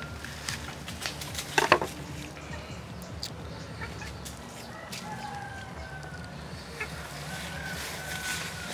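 A heavy kitchen knife strikes down on a wooden table twice in quick succession, about one and a half seconds in, cutting through the mackerel. Chickens cluck now and then in the background over a low steady hum.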